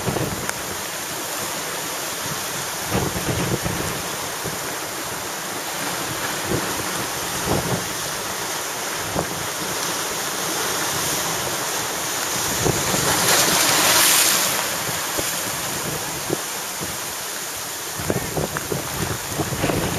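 Hurricane-driven surf breaking on a rocky shore under strong wind, with gusts buffeting the microphone. One wave surges loudest a little past the middle.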